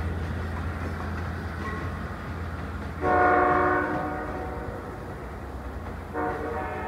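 Long Island Rail Road diesel train pulling away with a steady low engine rumble. Its locomotive horn sounds a chord twice: a blast of about a second roughly three seconds in, and a second blast starting near the end.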